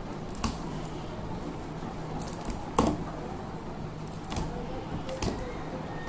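Side cutters snipping through the copper wire of a ceiling fan's stator winding as the burnt running coil is cut away: about five sharp snips at irregular intervals, the loudest near the middle.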